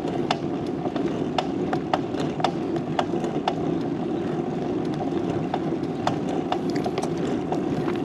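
Bicycle rolling along a rough asphalt road: a steady rumble of tyres on the pavement, with irregular sharp clicks about two a second.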